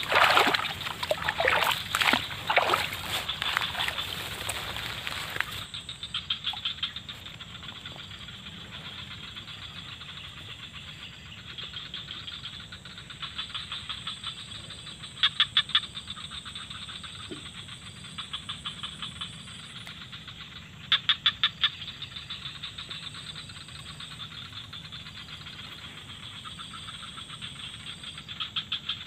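Loud knocks and rustling in the first few seconds. Then a steady high chirring of forest wildlife, with two bursts of louder, rapid pulsed calls, one about halfway through and one about two-thirds through.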